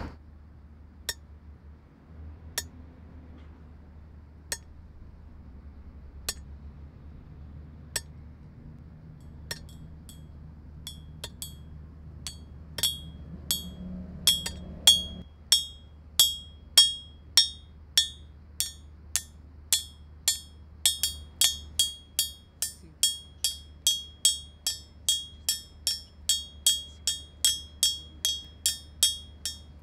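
Hammer-like metallic clinks made by tapping small objects against metal, the homemade sound effect of a hammer. Single taps come every couple of seconds at first, then from about halfway they settle into a steady ringing beat of roughly one and a half a second, growing denser near the end. A low hum underneath cuts off about halfway.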